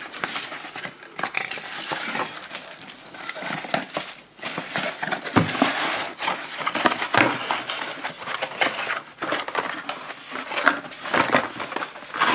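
Paper and plastic packaging rustling and crinkling, with small knocks and clicks, as the contents of a product box are handled and unpacked.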